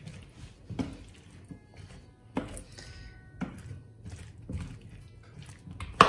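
Wooden spatula stirring diced zucchini in a frying pan, knocking against the pan five times about a second apart, the loudest knock near the end, under soft acoustic background music.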